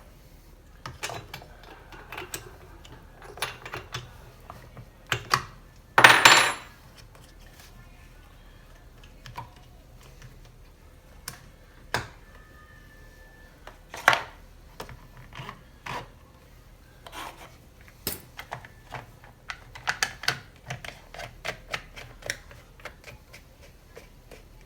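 Hand tools and small chainsaw parts clicking and clinking at irregular intervals as an Echo chainsaw is reassembled, with one louder clatter about six seconds in.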